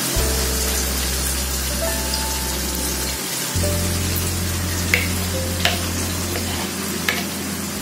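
Blended spice paste sizzling as it is poured into hot oil in a wok, a steady frying hiss. A few light clicks in the second half, from a spoon scraping the paste out of the blender jar.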